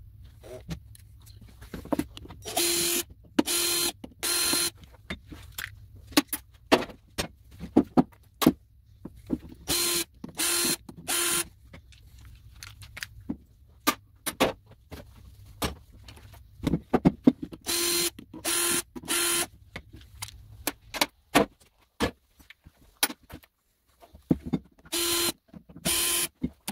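Cordless drill-driver whirring in short bursts, mostly three at a time, as it backs screws out of a circulator pump's housing, with clicks and clinks of screws and parts being handled between the bursts.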